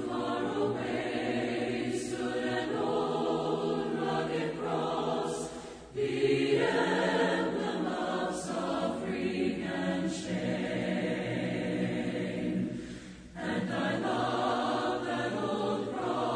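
A church congregation singing a hymn a cappella, the invitation song at the close of a sermon. Long held phrases with short breaks about six and thirteen seconds in.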